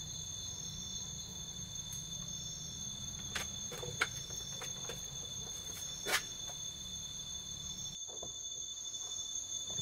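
Night insects chirring in steady high-pitched tones, with a few sharp clicks and knocks around the middle.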